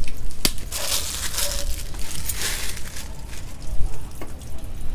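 A cloth rag rustling as it is handled and pushed about, in two stretches of hissy rustling, with a sharp click about half a second in.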